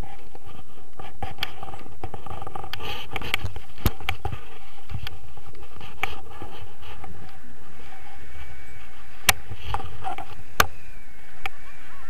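Wind buffeting the microphone of a boom-mounted action camera during a tandem paraglider's take-off run, a steady rumbling rush broken by a dozen or so sharp knocks.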